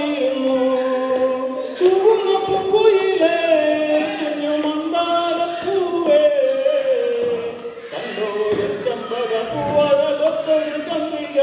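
A group of men singing a Malayalam naadan paattu (Kerala folk song) together in chorus into microphones, sustained melodic lines with a short dip about eight seconds in.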